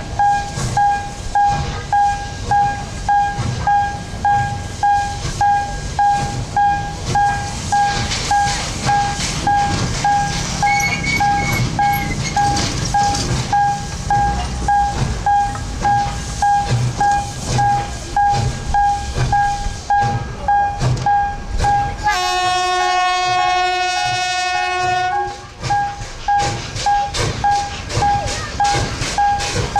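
Steam locomotive hauling a heavy loaded train, its exhaust chuffing steadily at about two beats a second with a ringing note on each beat. About 22 seconds in, its steam whistle sounds once for about three seconds.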